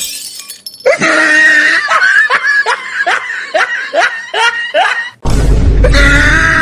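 Loud, rhythmic laughter, a string of 'ha-ha' calls each dropping in pitch, about three a second. About five seconds in, a louder burst of laughter comes over a noisy low rumble.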